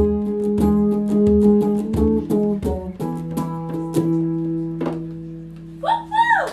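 Acoustic guitar strumming the closing chords of a song, with low thumps on the beat for the first three seconds, then a held chord ringing out and fading. A short rising-and-falling vocal cry comes near the end.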